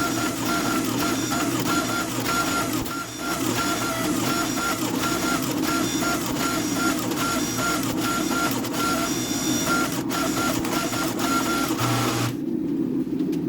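A workshop machine running steadily with a low hum, and a short tone repeating about twice a second.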